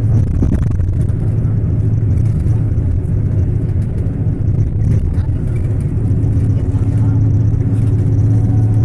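Steady engine and road rumble heard inside a moving vehicle on a highway, with a low drone that grows stronger about six seconds in.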